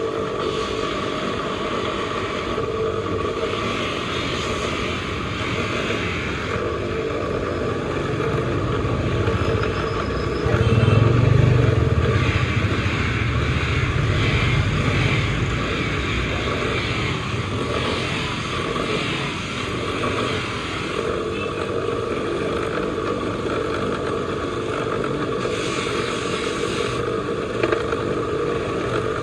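A motor running steadily, with a louder low rumble for several seconds from about ten seconds in.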